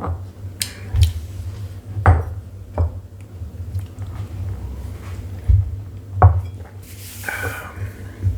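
Glassware being handled on a tabletop: about six short knocks and clinks as tasting glasses are picked up and set down, with a brief hiss about seven seconds in.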